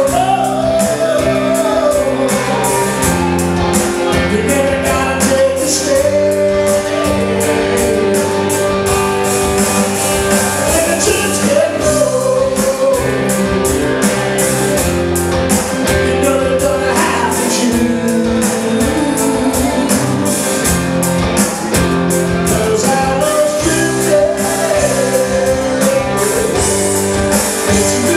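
Blues band playing live: a lead singer over guitar and a steady drum beat.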